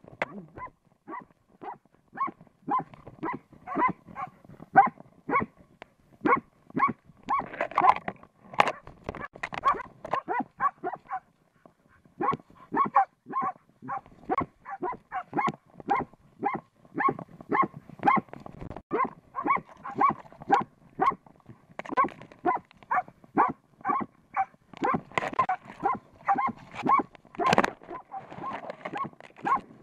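Norwegian elkhound barking steadily and rapidly, about three barks a second, at a badger it is holding at bay. There is a short break in the barking about eleven seconds in.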